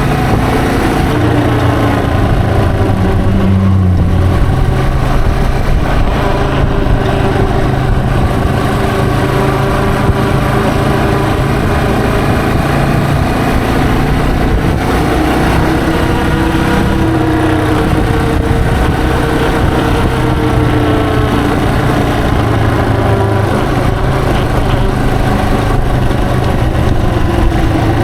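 Yamaha TW225's single-cylinder four-stroke engine running under way, its pitch rising and falling as the bike speeds up and slows down.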